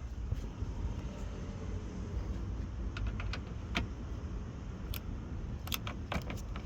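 Steady low rumble with scattered sharp clicks and taps, several in quick succession near the end.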